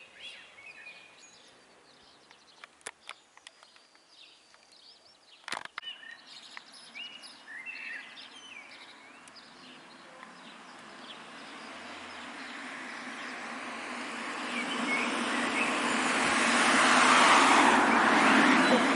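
Small birds chirping, with a couple of sharp clicks, then a passing road vehicle that swells up over several seconds, is loudest near the end and begins to fade.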